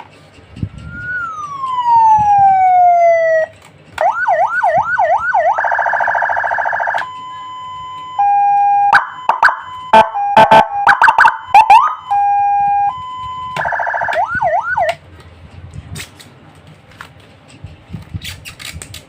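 A 200-watt programmable electronic siren module sounding through its speaker and switching between tones: a rising-then-falling wail, a fast yelp, a harsh buzzing horn, steady held tones and a burst of sharp pulses, then the fast yelp again. It stops about three-quarters of the way through, leaving only faint clicks.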